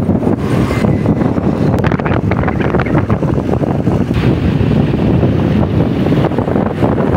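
Wind buffeting the microphone over steady road and engine noise from a moving vehicle.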